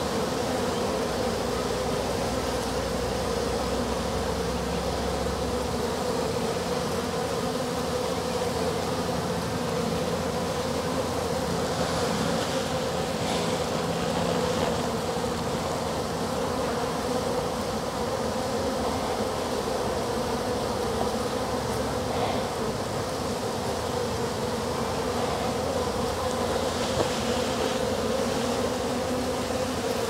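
A honey bee swarm buzzing: the steady hum of many bees flying around the cluster.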